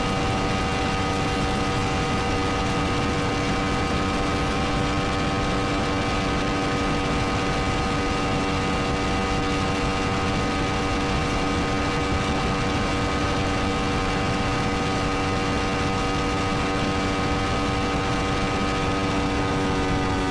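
Yamaha MT-10's crossplane inline-four engine held at high revs near top speed, about 290 km/h, giving one steady, unchanging engine note over a heavy rush of wind.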